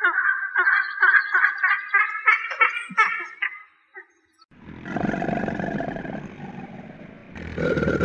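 An eagle calls in a quick run of high, repeated yelping notes for about three and a half seconds. After a short pause, a large animal gives a deep, rough roar from about four and a half seconds in, and a second roar starts near the end.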